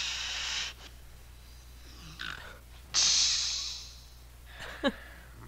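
A woman hissing sharply through her teeth in the manner of the Bride of Frankenstein: one hiss at the start, a fainter one about two seconds in, and the loudest about three seconds in, then a short rising vocal squeak near the end.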